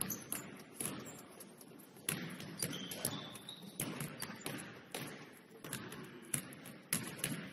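Several basketballs bouncing on a hardwood gym floor during warm-up dribbling and shooting: irregular, overlapping thuds that echo in the large gymnasium.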